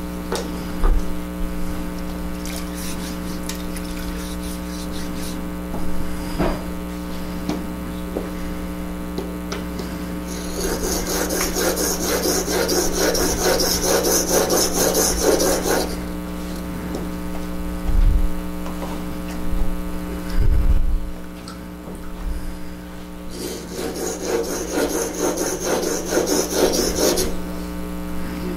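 A steel chisel rubbed back and forth on a sharpening stone in two long spells of scraping, reworking a bevel that was not at 30 degrees. Brief knocks of tools being handled on the table come in between, over a steady electrical hum.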